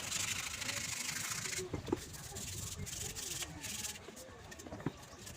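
Hand sanding strokes, a scratchy rasp: one long stretch, then several shorter strokes, easing off after about four seconds.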